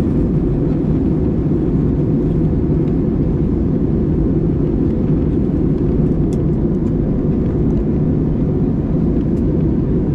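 Steady cabin drone of an Airbus A320-200 in flight: a deep, even rumble of engine and airflow noise that holds level throughout.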